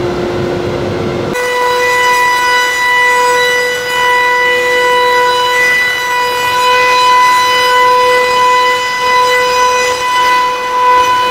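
Router spindle of an all-in-one slab flattening machine running its surfacing cutter over a wood slab: a loud, steady high whine with overtones. About a second in, the pitch steps up and the low rumble underneath drops away.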